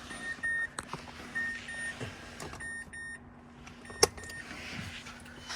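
A car's electronic warning chime beeping in pairs, about one pair every second and a quarter, over a faint steady hum, with a sharp click about four seconds in.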